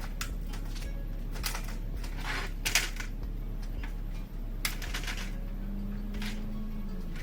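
Metal hardware clinking: a handful of sharp clicks and clinks, loudest about two and a half seconds in, over a steady low hum.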